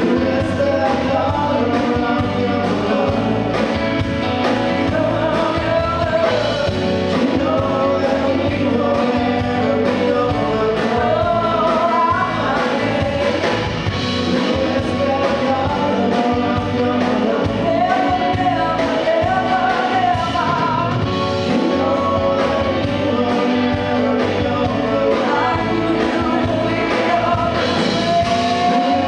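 Live band performing a song, with a woman singing lead over the full band.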